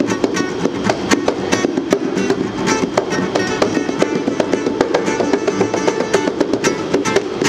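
Acoustic guitar strummed in a quick, steady rhythm, with a pair of bongos played by hand alongside it: an informal guitar-and-bongo jam.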